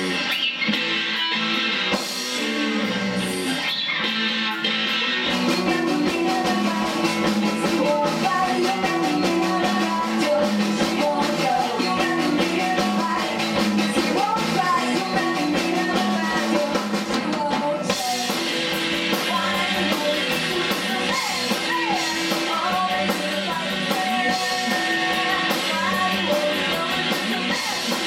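Indie rock band playing live: electric guitars, bass and drum kit, with a woman singing. The drums come in about five seconds in.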